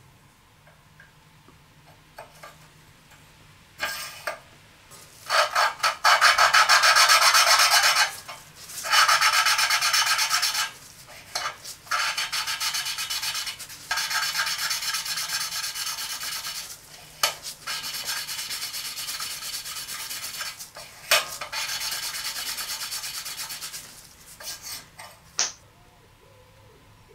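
Engine valve being lapped into its seat with abrasive lapping paste in a Briggs & Stratton engine block. The valve is twisted rapidly back and forth, giving a gritty rasping in several spells of a few seconds each, starting about five seconds in. The lapping grinds the valve and seat to make a really good seal.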